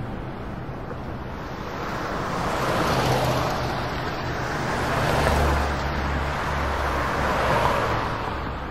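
Road traffic: a steady hiss of tyres and engines, with cars passing by about three times, each swelling and fading.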